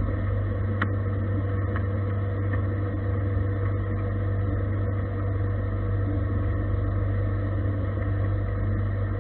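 Gildemeister CTX 400 S2 CNC lathe running, its electrospindle turning a metal bar against a turret tool: a steady low hum with several steady higher tones. A single sharp click about a second in.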